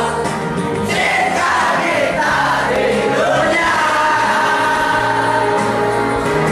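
Music with several voices singing together over a steady bass line.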